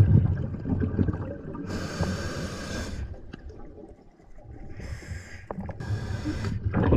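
A diver breathing through a snorkel: three hissing breaths, the first and longest about two seconds in and two shorter ones near the end, over a low rumble of moving water.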